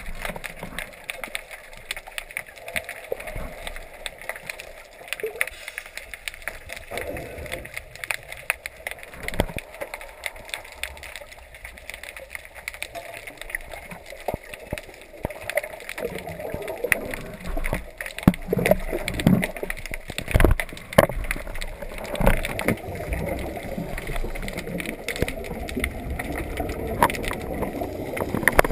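Underwater sound heard through a camera's waterproof housing: a steady crackle of small clicks over a watery hiss, with louder gurgling bursts of bubbles from the scuba divers' exhaled air in the second half.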